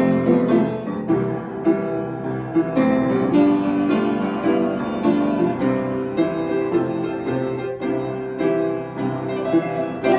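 Piano playing the introduction to a gospel hymn, chords struck at a steady, unhurried pace with no singing yet.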